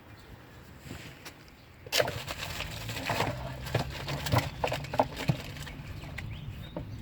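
Brake pads being worked into a car's front caliper bracket: a run of sharp metal clicks and knocks with scraping, starting about two seconds in and easing off near the end.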